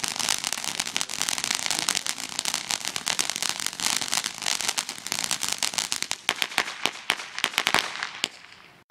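Small ground fountain firework spraying sparks, giving a dense, rapid crackling of sharp pops that stops suddenly about eight seconds in as the fountain burns out.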